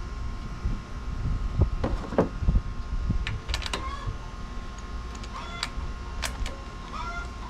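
Knocks and clatter of handling in the first half, then chickens clucking in short calls in the second half.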